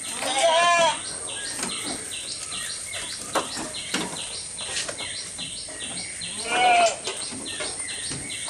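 Goats bleating twice, each a short wavering call: one just after the start, the other about six and a half seconds in. Between the calls comes the crackle and crunch of goats pulling and chewing cut green fodder from a wooden trough.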